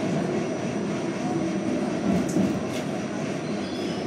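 Westinghouse-Amrail R68 subway car running through the tunnel, heard from inside: a steady rumble of wheels and running gear, with a couple of faint clicks a little over two seconds in.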